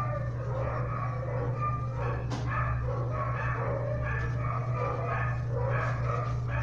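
Dogs barking, yipping and whining in short repeated calls, over a steady low hum.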